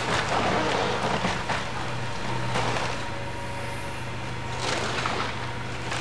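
Wheeled excavator's diesel engine running steadily while its bucket tears into a wooden house: timber cracking and splintering, and debris crashing down. The cracking is loudest in the first second and a half, with more bursts about two and a half and five seconds in.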